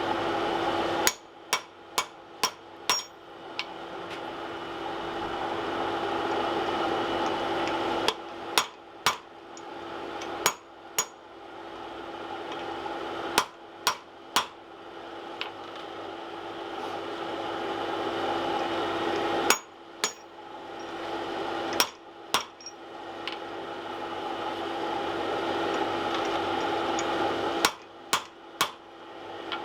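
Blacksmith's hand hammer striking hot steel on an anvil in short runs of three to six blows, five runs in all. A steady roar with a low hum fills the gaps between the runs.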